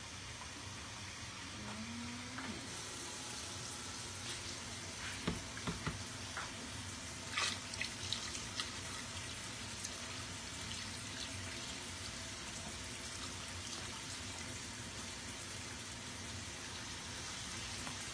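Water running from a kitchen tap into a stainless steel sink as a plastic pitcher is filled and emptied into a crock pot, a steady splashing hiss. A few light clicks and knocks come around the middle.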